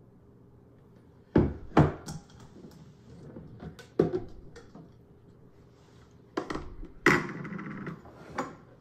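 Plastic blender jar and lid knocking and clunking as they are lifted off the base, set on the countertop and pulled apart: two knocks close together, another a couple of seconds later, then a short clatter near the end.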